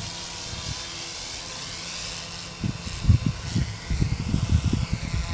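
GooSky Legend S1 small electric RC helicopter hovering low: a steady high motor and rotor whine whose pitch dips and climbs back near the end as the throttle changes. Irregular low rumbling comes in from about halfway.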